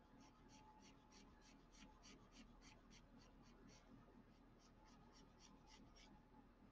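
White charcoal pencil scratching short, quick hatch strokes on black drawing paper, faint, about five strokes a second. The strokes break off briefly about four seconds in, then stop near the end.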